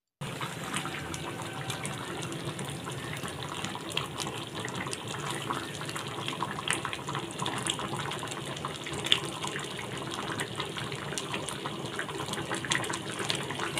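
Thick tamarind gravy with white pumpkin boiling in a steel kadai: steady bubbling with many small pops.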